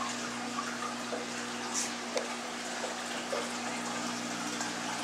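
Saltwater aquarium's circulation running on its sump system: steady water rushing and trickling, with a steady low hum underneath and a few small splashes.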